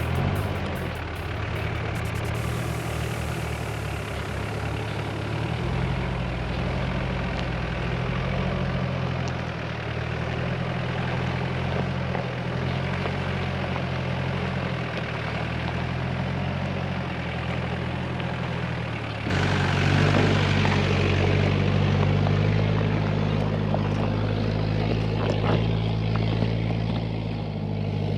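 4x4 driving slowly over a rough, bumpy dirt trail: steady engine with a constant rumble of tyres on the track. The engine note shifts a few times and the whole sound gets louder about 19 seconds in.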